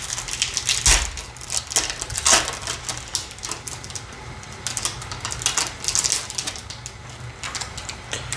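Foil wrapper of a baseball card pack being torn open and crinkled by hand, with irregular crackling throughout and a few louder crackles in the first few seconds.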